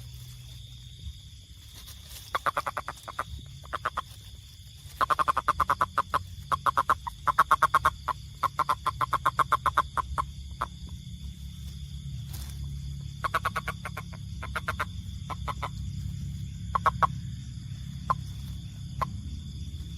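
Frog calling: repeated trains of rapid clicking pulses in bursts of a second or so, with a few short single croaks near the end. A steady high-pitched drone runs underneath.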